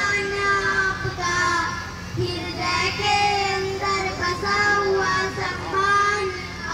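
A group of young girls singing a welcome song together into microphones, holding some notes for about a second.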